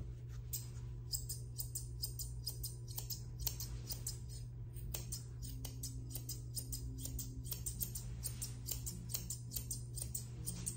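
Straight grooming shears snipping in rapid, uneven runs through a Bichon puppy's fluffed coat, a quick series of crisp clicks.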